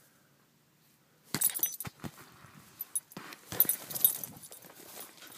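A small dog scuffling and tussling with a ball on grass, with light metallic jingling from its collar in short bursts. The jingling starts after about a second of near silence and comes again several times.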